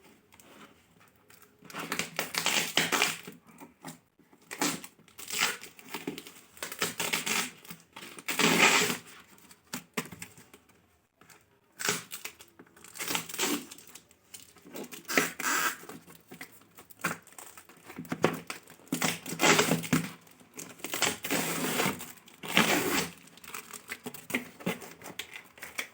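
Packaging being torn open and crinkled by hand, in irregular rustling bursts with short pauses between.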